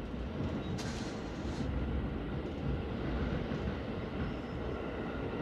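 Interior running noise of an electric passenger train: a steady rumble of wheels on the rails. A brief hiss comes about a second in.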